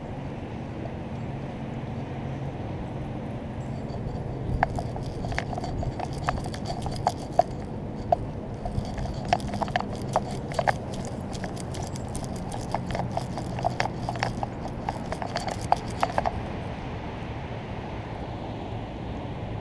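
Irregular sharp clicks and knocks from the camera rig strapped to a dog's back, jostled as the dog moves, running from about five seconds in until about sixteen seconds in. A steady low rumble lies underneath.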